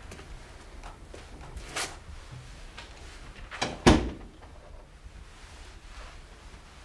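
A panelled interior door pushed shut, closing with a sharp knock about four seconds in, just after a lighter one; a couple of faint clicks come earlier as it is opened.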